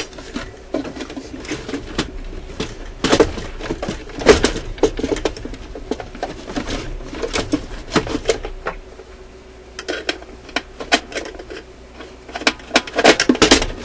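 Irregular clicks, taps and rattles of the metal and plastic parts of an Admiral suitcase record player's changer mechanism, tonearm and turntable, being handled and worked loose by hand. They come in several quick clusters, the busiest near the end.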